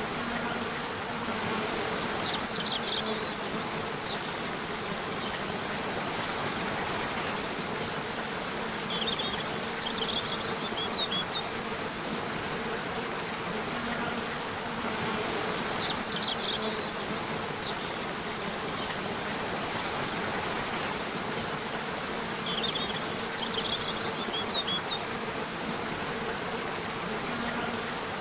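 Nature soundscape: a steady rush of flowing water with an insect buzzing on and off. Small clusters of short, high bird chirps come in a few times. The same pattern recurs about every 13 to 14 seconds, like a loop.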